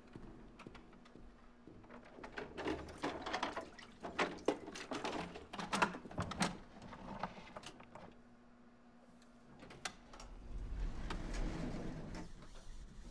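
Elevator doors sliding open with a quick run of mechanical clicks and rattles. About ten seconds in, a low rumble starts.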